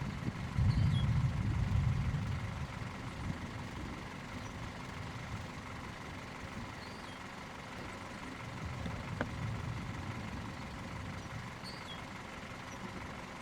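Steady low engine hum of an idling vehicle, with a heavy low rumble of wind on the microphone in the first few seconds.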